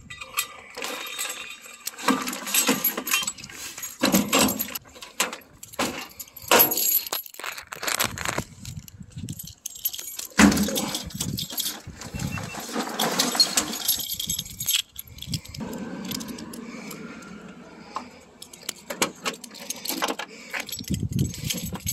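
Fishing gear being handled and loaded in a pickup truck's wooden bed: irregular rattling, clinking and knocks from rods, reels and a bag being moved.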